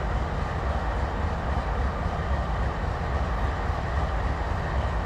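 Norfolk Southern diesel-electric locomotives idling at a standstill, a steady low rumble.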